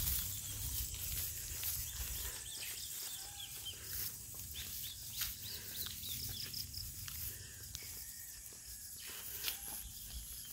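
Dusk outdoor ambience: many short bird chirps scattered throughout, over a steady high-pitched insect drone, with a low rumble underneath.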